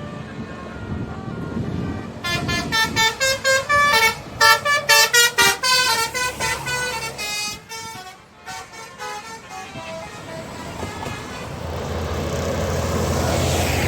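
Bus telolet horn, a multi-tone musical air horn, playing a fast tune of short notes that jump up and down in pitch, trailing off in a few softer falling notes. A vehicle then passes close, its engine and road noise growing louder near the end.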